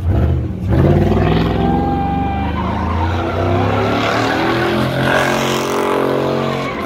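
Lowered GMC pickup truck doing a burnout: its engine is revved hard and held high while the rear tyres spin and squeal on the asphalt. The revs build about a second in, climb slowly, and drop off near the end.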